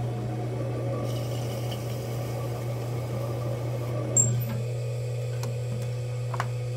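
Electric pottery wheel running with a steady low motor hum while wet slip is scraped and wiped off its spinning wheel head by hand and a tool, with one sharp knock about four seconds in.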